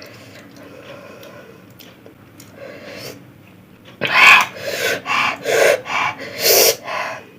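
A woman's loud, sharp breaths, about five quick hissing gasps half a second apart, starting about four seconds in. She is panting at the burn of very spicy chilli food.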